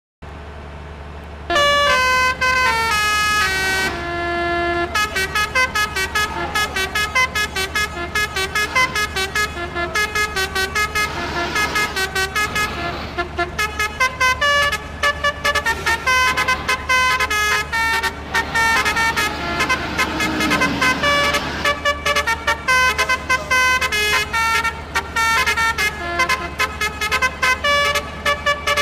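Telolet 'basuri' multi-tone vehicle horn playing a fast melody, its notes changing several times a second. It starts about a second and a half in, over a steady low hum.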